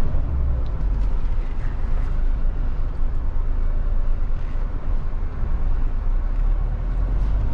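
Mahindra Thar's turbo-diesel engine running as the 4x4 drives over a rough dirt track, heard from inside the cabin as a steady low rumble with tyre and road noise.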